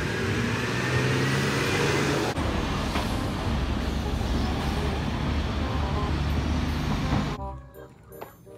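MAN heavy truck pulling a lowboy trailer loaded with an excavator, its diesel engine running steadily with road and tyre noise as it drives past. A faint rising whine is heard over the first two seconds. The sound cuts off about seven and a half seconds in.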